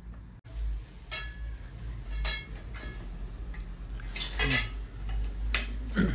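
Tubes of a white metal clothes rack clinking and knocking together as they are handled: about five short metallic clinks, some ringing briefly, the loudest near the end.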